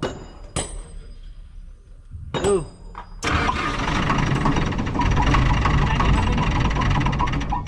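Kobelco SK200 excavator's diesel engine, its rocker cover off, cranked over by the starter for about four and a half seconds, starting suddenly about three seconds in and cutting off near the end.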